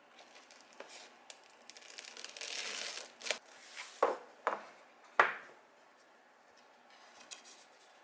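Crinkling and tearing of paper or plastic, building for a second or so, then several sharp clicks.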